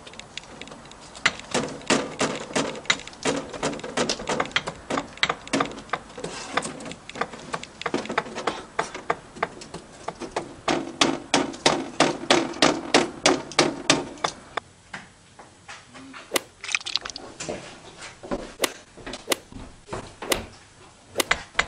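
A hammer striking a wooden board to fix it over a window, with quick repeated blows at about two a second, then after about fourteen seconds a few slower, sparser strikes.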